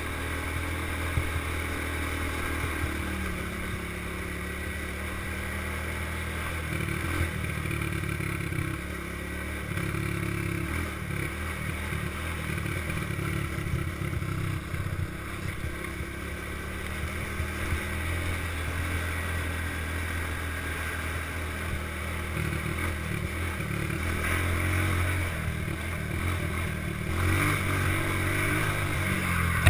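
Small all-terrain vehicle engine running steadily under way on a dirt road, its pitch shifting every few seconds as the throttle changes.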